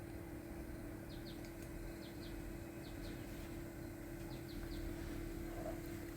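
A small bird chirping, short high notes in twos and threes about once a second, over a steady low hum.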